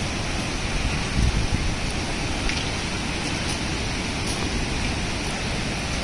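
Steady rushing of fast-flowing river water, an even noise with a low rumble beneath it.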